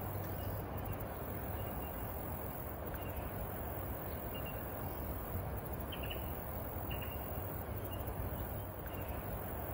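Steady low rumbling background noise, with faint short bird chirps scattered through it every second or so.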